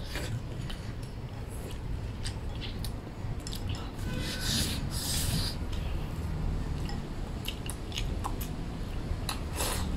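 Chewing and biting into a crisp pan-fried chili-and-rice-flour pancake, with a louder crunchy bite about four to five seconds in and many small clicks of eating throughout; a sip from a soup bowl near the end.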